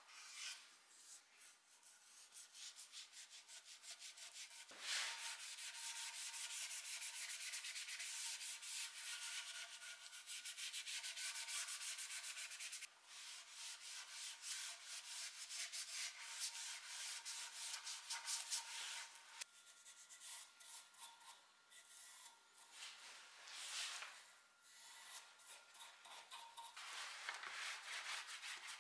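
Gloved hand rubbing dark wood stain into a wooden rocker, a fast run of scratchy rubbing strokes on the wood that starts about five seconds in and changes pace a few times.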